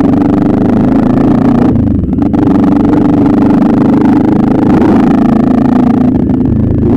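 Motorcycle engine running steadily under way. The engine note dips briefly and shifts about two seconds in.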